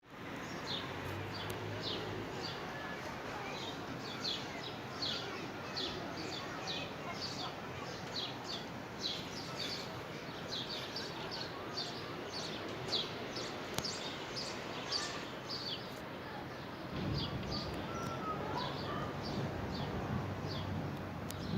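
A small bird chirping over and over, short high calls about twice a second, over steady outdoor background noise. About seventeen seconds in, a low noise rises beneath it.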